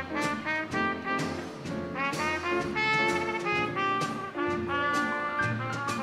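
Live small dance band playing an old-time jazz instrumental, with trumpet over piano, acoustic guitar, upright bass and drums.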